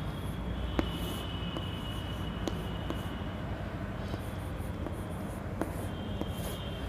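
Chalk writing on a chalkboard: faint scratchy strokes with a few light taps as the chalk meets the board, over a steady low hum.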